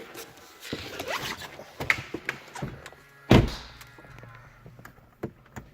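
Car door shut with a loud solid thunk about three seconds in, after several lighter clicks and handling knocks; a low steady hum follows the shut.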